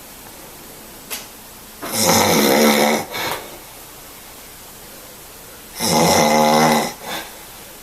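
A person snoring loudly: two long snores about four seconds apart, each lasting about a second and followed by a short, softer snort.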